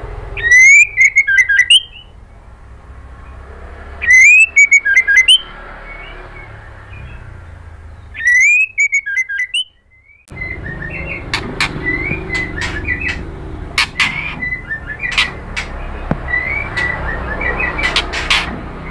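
White-rumped shama singing: three loud bursts of clear, whistled song a few seconds apart, each about a second long with rising notes. After about ten seconds the song turns to softer twittering broken by many sharp ticks.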